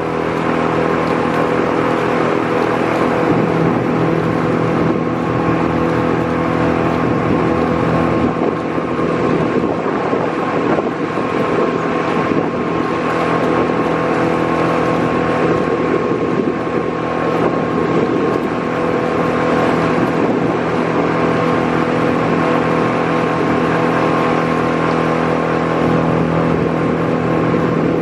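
Outboard motor of a following coaching launch running steadily at speed, a constant hum with several held tones.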